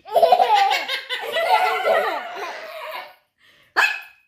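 Young children and a pet parrot laughing together, several overlapping laughs for about three seconds. After a brief pause there is one short, sharp cry with a falling pitch near the end.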